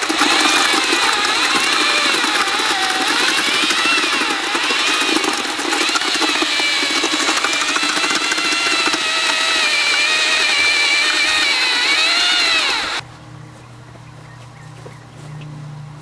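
Corded electric drill with a paddle mixer stirring concrete in a bucket, its motor whine wavering up and down in pitch as the load changes, then cutting off suddenly about 13 seconds in. After that a low steady hum remains.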